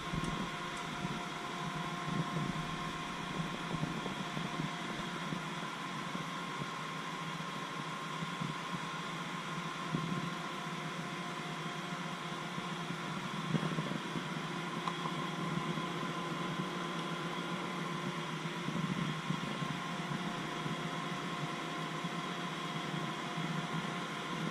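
Steady drone of ship's machinery and ventilation heard inside an engine control room: an even hiss with a few constant hum tones running through it.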